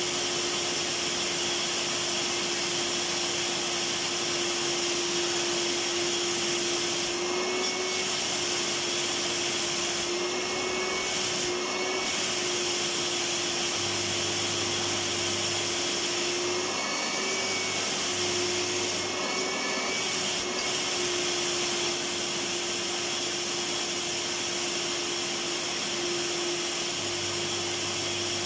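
Electric vacuum cleaner running steadily: a continuous whooshing noise with a constant motor hum, its tone wavering briefly a few times.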